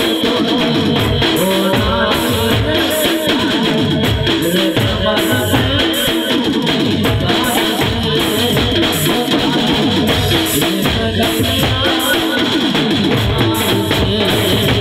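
Live Gujarati folk song played loud through a PA system: a singer's voice over drums and percussion with a steady beat.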